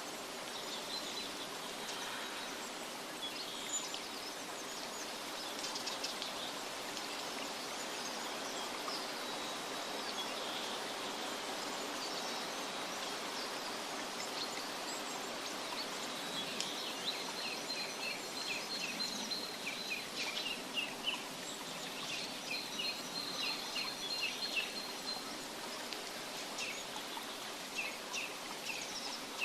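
Steady hiss of running water with small birds chirping over it, the chirps coming as quick repeated runs in the second half.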